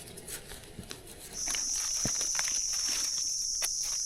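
An insect's steady high-pitched buzz sets in about a second and a half in and holds, over light rustling and crunching of footsteps in forest leaf litter.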